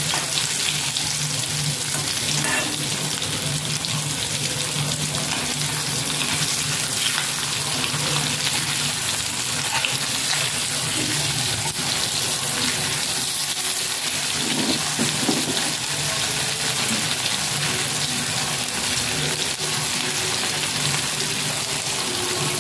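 Rava-coated pieces of halwa (black pomfret) fish shallow-frying in oil in an iron kadhai, sizzling steadily, with a steel spatula scraping the pan now and then as the pieces are turned.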